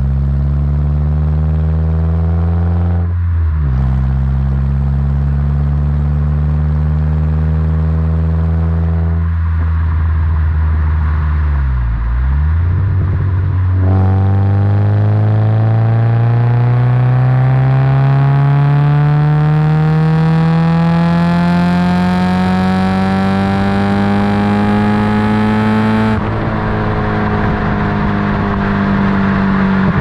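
1992 Honda Civic EG5's 1.6-litre SOHC VTEC D16Z6 engine heard at the tailpipe through the stock exhaust with a Magnaflow muffler, pulling through the gears. The pitch climbs, drops at a shift about three seconds in, climbs again, then eases off and falls for a few seconds. A long rising pull in third starts about halfway through, and the pitch drops at the shift into fourth near the end before it rises again.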